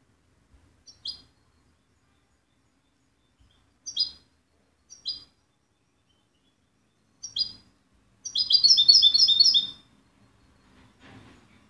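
Caged European goldfinch calling: four short chirps a couple of seconds apart, then a quick run of repeated notes lasting about a second and a half.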